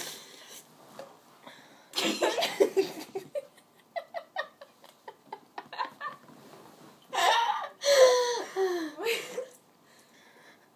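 Girls giggling and laughing in fits: a burst about two seconds in, a run of quick short giggles, then a longer laugh with the pitch sliding up and down near the end.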